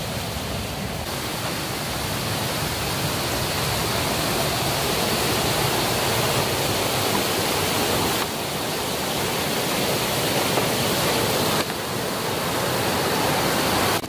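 Steady rushing of a rocky mountain stream, its level jumping abruptly a few times.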